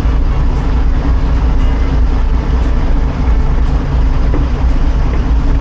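Fishing boat's engine idling, a steady low rumble.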